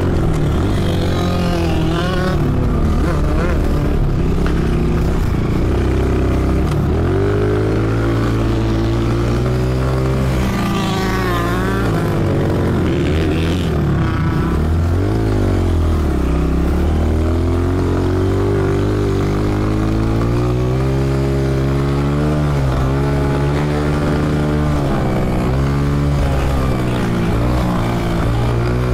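Honda CRF125F dirt bike's single-cylinder four-stroke engine under way, its pitch climbing and dropping again and again as the throttle is rolled on and off through corners and straights.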